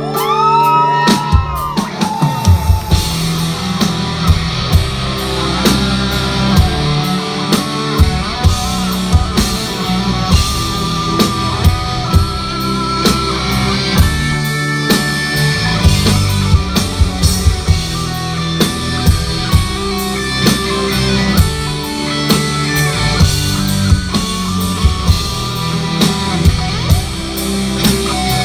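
Rock band playing an instrumental break: guitar over bass and a steady drum-kit beat.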